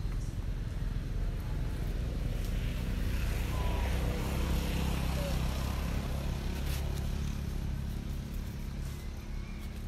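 Steady low hum of a motor vehicle engine running, with a noisy hiss above it, a little louder in the middle and easing off near the end.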